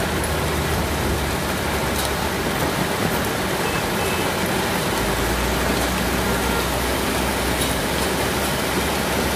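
Heavy rain mixed with hail pouring onto a street, a loud, steady hiss with a few faint sharp ticks of stones striking close by. A low rumble of cars on the wet road joins about halfway through.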